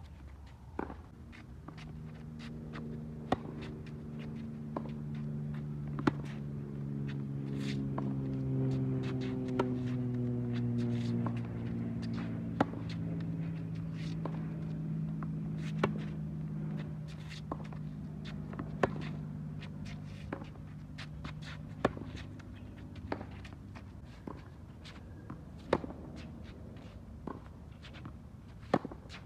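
Tennis balls struck in a steady baseline rally on a hard court: sharp pops about every one and a half seconds, the near player's racquet strikes loudest, roughly every three seconds. Underneath, a low droning hum swells, slowly falls in pitch and fades away well before the end.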